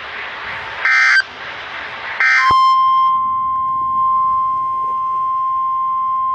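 Two short screechy data bursts of an Emergency Alert System SAME header, about a second apart, announcing a new alert. Then, about two and a half seconds in, the steady single-tone NOAA Weather Radio warning alarm starts and holds.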